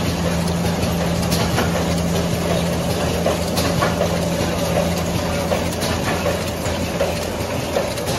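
Wet wipe packing machine running: a steady mechanical hum with irregular light clicks from its moving parts. The low part of the hum fades away near the end.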